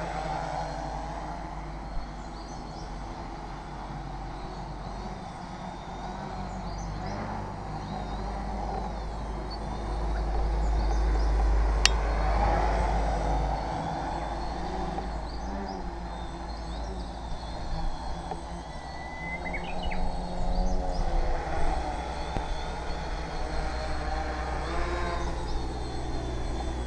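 Tarot FY680 hexacopter's electric motors and propellers buzzing in flight, the pitch shifting up and down with throttle and growing louder twice as it comes closer.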